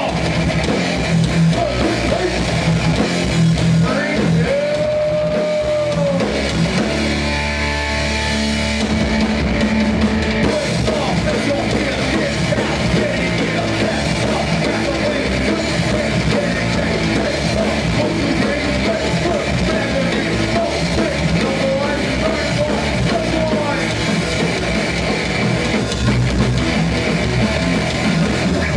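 Hardcore band playing live: distorted electric guitars, bass and a pounding drum kit. About five seconds in, one held guitar note rises and falls.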